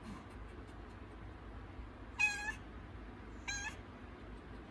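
Cat in labour meowing twice, two short high calls a little over a second apart, the first the louder.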